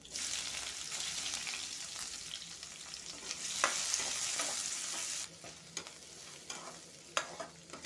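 Sliced onions sizzling in hot oil with cumin seeds in a kadhai as a metal spatula stirs them. The sizzle is strongest in the middle and drops sharply a little after five seconds, leaving quieter frying and the spatula's scrapes and taps on the pan.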